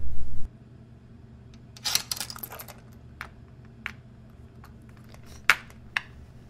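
Low music stops abruptly about half a second in, leaving a quiet room with scattered small clicks and rustles: a short flurry about two seconds in, then a few single ticks, the loudest near the end.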